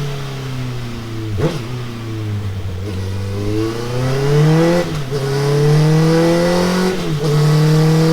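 Honda CBR650R's inline-four engine running through a Delkevic oval carbon fibre silencer on a dyno, pulling hard with its note climbing slowly. The note breaks off briefly three times, at about one and a half, five and seven seconds, and each time comes back a little lower before climbing again, like upshifts through the gears.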